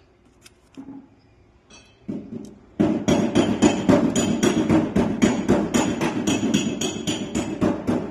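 Rapid metallic hammering, several sharp ringing strikes a second, starting about three seconds in after a few faint clicks.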